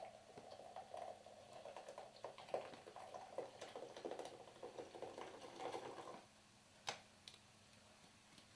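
Diet Coke being poured from a can into a jug, a faint gurgle with fizzy crackling, which stops about six seconds in. A couple of short clicks follow.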